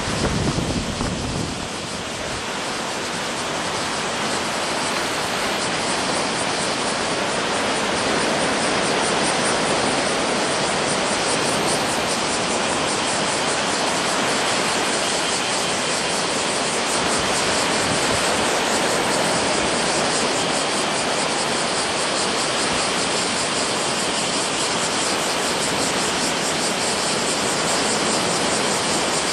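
Steady roar of ocean surf from typhoon swell breaking along the beach, with wind buffeting the microphone in the first couple of seconds.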